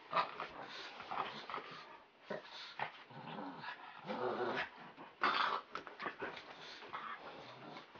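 Dog growling in play in irregular bursts, with short rising-and-falling growls about three and a half and four and a half seconds in.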